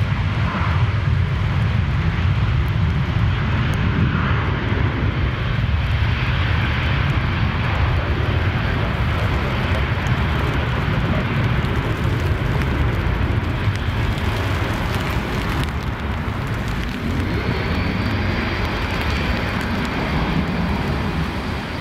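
Jet airliner engines running loud and steady, with a faint high whine coming in near the end.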